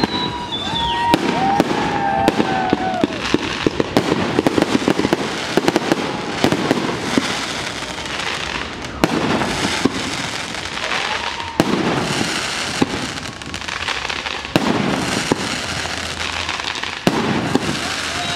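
Fireworks display: aerial shells bursting in a rapid, irregular run of bangs over continuous crackling.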